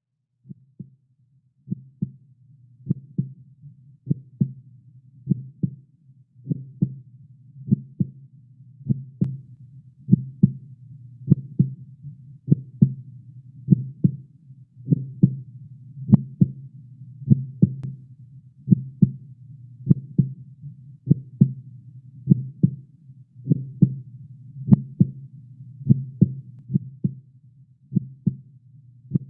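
Heartbeat sound effect: paired lub-dub thumps repeating steadily about once every 1.2 seconds, over a low continuous hum.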